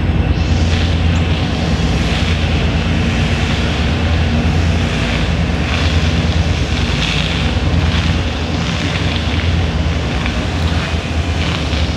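Pair of EMD GP39-2 diesel locomotives, turbocharged V12s, pulling a freight train away, heard as a steady low engine drone with a rougher hiss over it.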